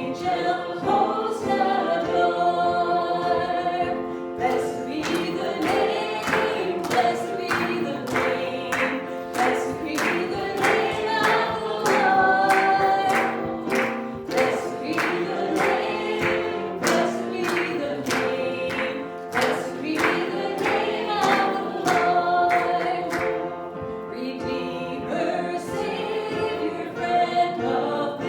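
Congregation singing a gospel hymn with instrumental accompaniment, with a steady percussive beat through most of it that drops out near the end.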